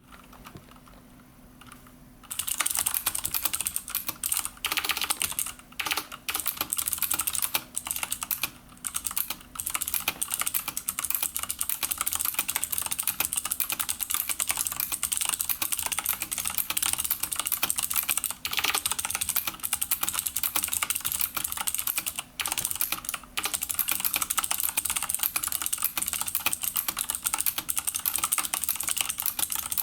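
Fast typing on a CM Storm mechanical keyboard with Cherry MX Blue switches, its keycaps fitted with rubber O-rings to dampen the keystrokes. A dense run of clicking starts about two seconds in and goes on with a few brief pauses.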